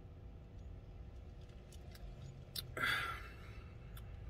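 Quiet sipping and swallowing of a drink from a paper cup, with a short breathy exhale about three seconds in, over a steady low hum.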